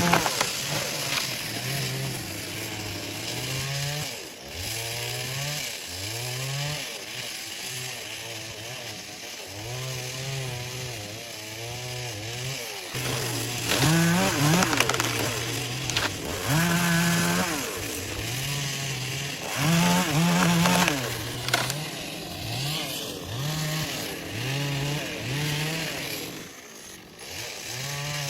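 Two-stroke chainsaw running, its engine speed repeatedly rising and falling as the throttle is worked, with louder high-revving stretches around the middle.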